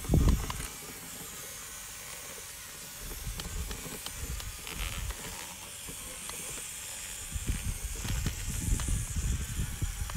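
A radio-controlled model SUV's small electric motor and wheels working slowly through wet mud, heard as a steady hiss with a few faint ticks. Low rumbling surges come right at the start and again through the last few seconds.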